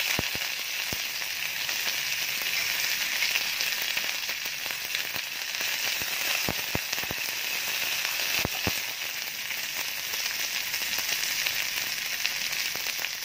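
Fresh curry leaves sizzling in hot mustard oil with cumin seeds and green chilli: a steady hiss of frying broken by a few sharp pops and splutters, several of them bunched about six to nine seconds in.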